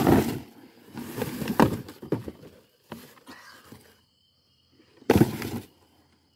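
Cardboard and paper rustling and bumping in bursts as the boxes are handled up close, loudest near the start and about five seconds in. From about four seconds in, a faint steady high insect trill runs underneath.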